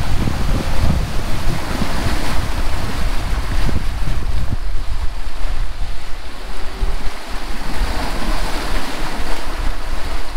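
Rush and splash of rough seawater churning in a sailing catamaran's wake, with wind buffeting the microphone; the low wind rumble is heaviest in the first few seconds.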